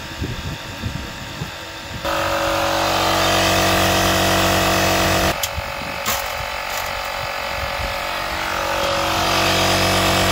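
Battery-powered air compressor of a CAT 1200A power station running steadily as it inflates a tire past 64 PSI, its motor straining and slow near the top of the fill. It grows louder about two seconds in and dips briefly about halfway.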